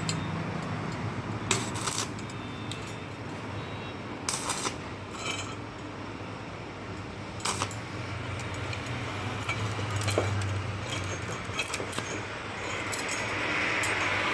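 Light metal clinks and taps, a handful of sharper ones spread out, over a steady low hum.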